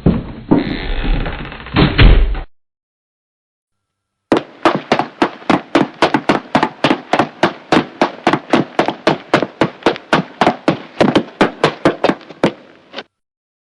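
A short burst of muffled footsteps that stops about two and a half seconds in. After a pause of almost two seconds comes a long, even run of quick footsteps, about four to five steps a second, like jogging, lasting around eight seconds.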